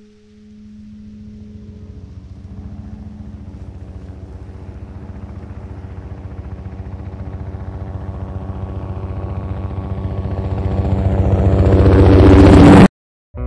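Helicopter approaching, its rapid rotor chop growing steadily louder to a peak and then cutting off abruptly near the end. A low sustained tone fades out in the first couple of seconds.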